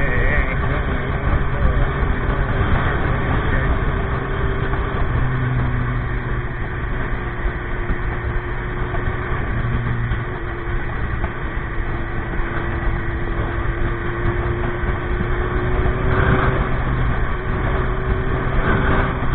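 Motorcycle running on the road while being ridden: a steady drone of engine and road noise.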